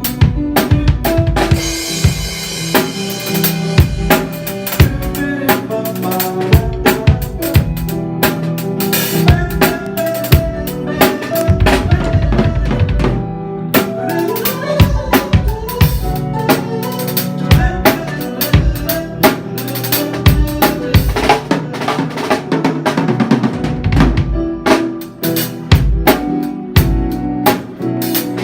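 Drum kit played in a busy, steady groove of kick drum, snare and rimshots, with cymbal crashes, over pitched bass and chord instruments.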